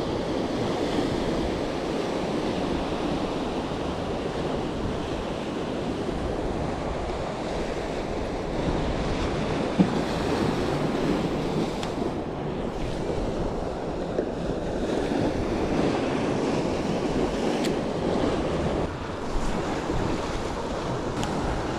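Ocean surf washing against the rocks of a jetty, a steady wash of water noise with wind buffeting the microphone. A single brief click about ten seconds in.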